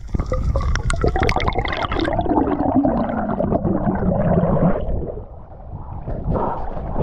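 Gurgling, bubbling water as a free diver rises and breaks the surface, with a wavering tone that falls in pitch over a couple of seconds. It gives way to quieter sloshing water at the surface about five seconds in.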